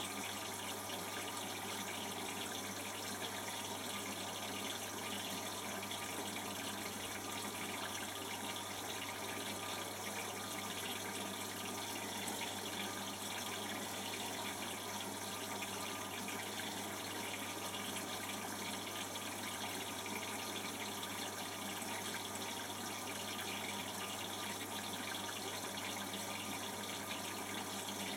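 Beko WTB741R2A front-loading washing machine filling with water: a steady rush of water running into the drum, with a low steady hum under it.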